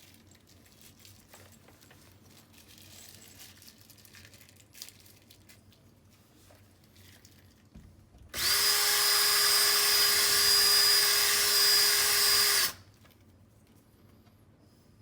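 Power drill with a 1/4-inch bit running at a steady speed for about four seconds, starting about eight seconds in, widening wall holes that were too small for plastic anchors. Before it come faint scrapes and handling sounds.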